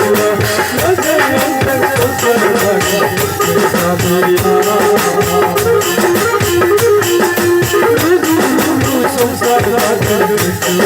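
Music: a melody over a steady percussion beat.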